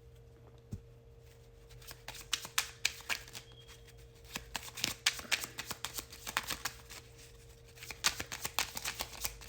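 A deck of oracle cards being shuffled by hand: quick runs of card flicks and snaps begin about two seconds in, pause briefly, then start again near the end.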